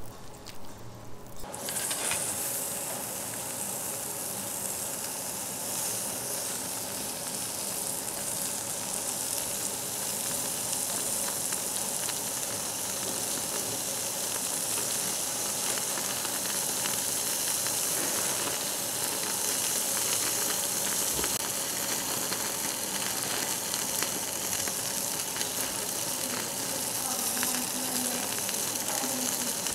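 Jeju black pork slices sizzling and spitting on a hot cast-iron barbecue grill plate: a dense, steady hiss with fine crackles, starting about two seconds in.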